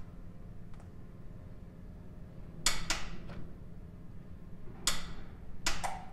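Click-type torque wrench on a Porsche Cayman's oil drain plug, giving a few sharp clicks, the loudest nearly three seconds in and more near the end, as the plug reaches its set torque of 35 foot-pounds.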